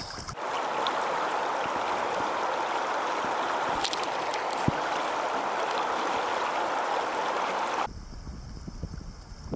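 Fast, shallow river water rushing over a gravel riffle in a steady hiss that starts abruptly just after the beginning and cuts off abruptly near the end. After the cut, wind rumbles on the microphone.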